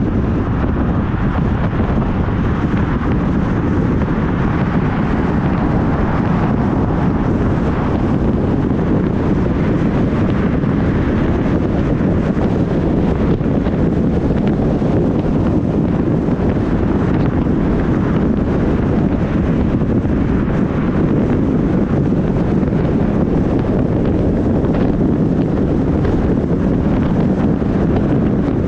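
Steady loud wind noise buffeting the microphone over a low rumble, unchanging throughout.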